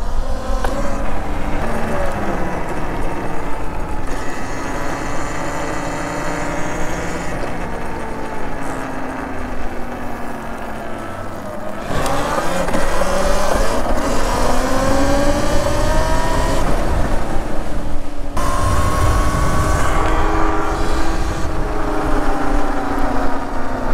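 Talaria Sting electric motorcycle's motor and controller whining, the pitch sinking slowly as the bike eases off, then rising sharply as it accelerates hard about halfway through, over a steady rush of wind on the microphone.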